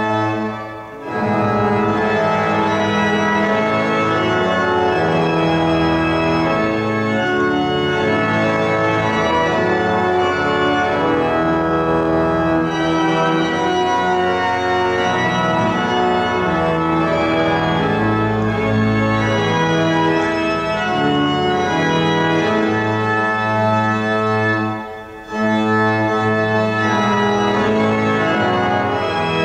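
Church organ playing a psalm tune in slow, held chords, with brief breaks between phrases about a second in and again near the end.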